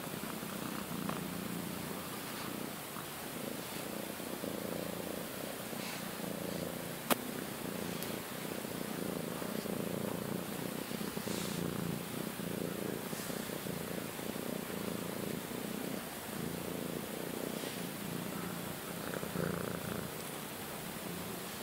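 Close-up purring of a domestic cat being stroked, steady and swelling and easing in a slow rhythm, with faint brushing of the hand over its fur. A single sharp click about seven seconds in.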